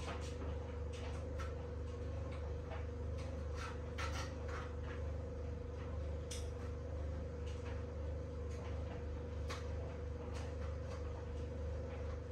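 Steady low hum of a kitchen appliance, with irregular light clicks and taps of food being handled on the worktop.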